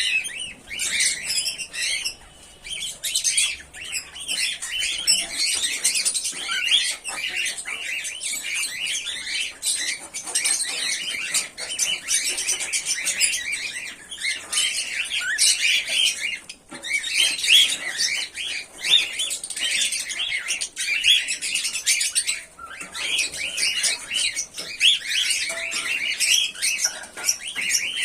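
Pearl cockatiels chirping and squawking, with many short calls overlapping in a continuous chatter.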